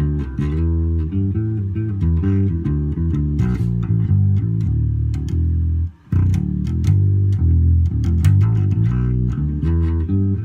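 Carvin electric bass playing a run of plucked single notes with the EQ set at one extreme: a deep sound with almost no top end. The playing breaks off briefly about six seconds in.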